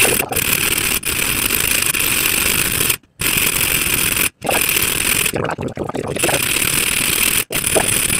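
Steel hand file being drawn over the steel jaws of pliers held in a bench vise: steady rasping metal-on-metal strokes, broken by three brief pauses. The file is cutting away the serrated teeth to make the jaws smooth.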